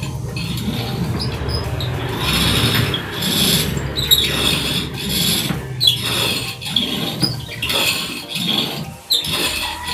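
Elliptical cross-trainer squeaking and creaking in rhythm with each stride, about one squeak every second.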